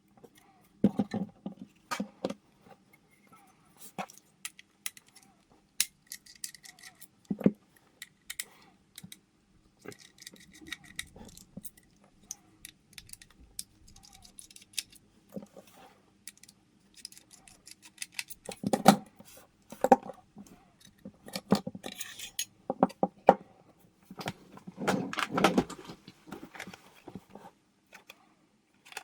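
Small plastic and metal computer parts being handled during a hard drive replacement in a mini desktop PC: scattered clicks, taps and short scrapes, busiest near the start and in the second half, over a faint steady hum.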